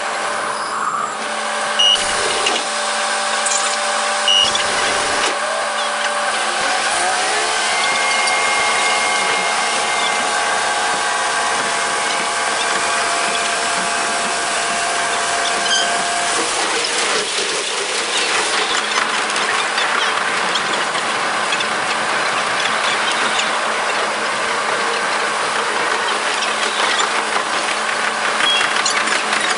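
KiHa 47 diesel railcar's engine and running noise, sped up fivefold so that it buzzes like a power tool. The engine note rises a few seconds in as the railcar pulls away and accelerates, then holds steady. About halfway it drops out, leaving a steady rushing running noise.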